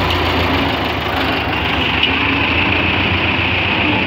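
Belarus 510 tractor's diesel engine running steadily.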